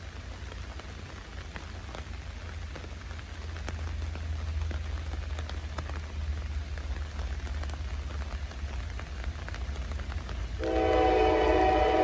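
Steady hiss of pouring rain over a low rumble; about ten and a half seconds in, the approaching CSX freight locomotive's air horn comes in loud with a held chord.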